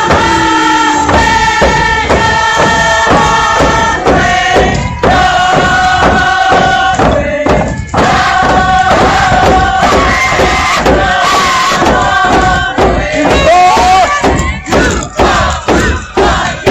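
Music: several voices chanting held notes over a steady drumbeat of about three strikes a second.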